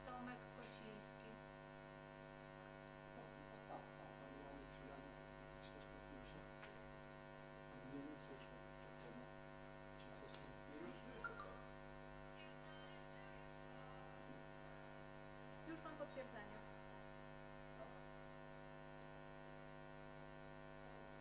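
Near silence with a steady electrical mains hum, many overtones stacked above it. A few faint, brief sounds come through about 8, 11 and 16 seconds in.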